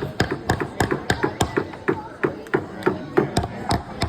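Hammer tapping nails into the wooden pieces of a kids' excavator kit, about four quick blows a second.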